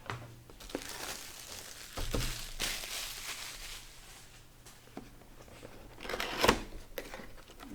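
Earphone packaging being opened by hand: crinkling and tearing of the wrapping, with a sharp knock about six and a half seconds in.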